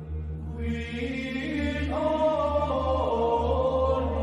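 Gregorian chant: sung voices with many overtones come in about half a second in over a steady low drone, and the held notes step down in pitch twice.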